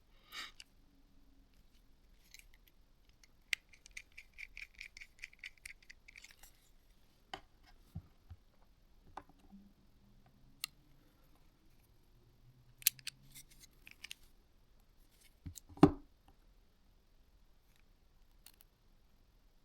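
Small clicks and taps of a Nokia N95 phone's parts being fitted back together by hand. A run of quick, even ticks, about six a second, lasts a couple of seconds early on, and a single sharper knock comes about three-quarters through.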